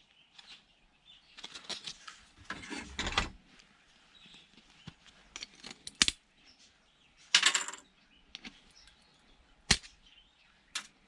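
Intermittent clicks and light metallic clatter of small parts and tools being handled while a DVD player is taken apart by hand, with a few single sharp clicks.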